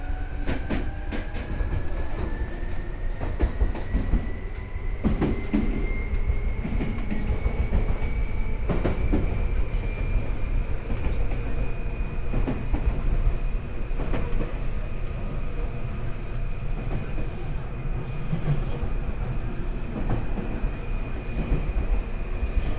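Seibu 2000 series electric train heard from inside the car: the traction motor whine rises in pitch as the train gathers speed and levels off about halfway through. Under it run a steady wheel-on-rail rumble and scattered clicks from the rail joints.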